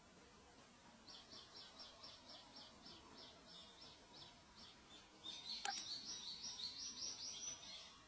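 Thrush nestlings begging: faint, high, short chirps repeated about four times a second, growing louder and more crowded about five seconds in. A single sharp click comes near the middle.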